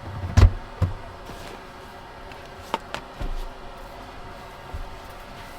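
Sharp knocks and clicks of things being handled in a cramped space, the two loudest about half a second apart in the first second, then a few lighter clicks and thumps, over a steady low hum.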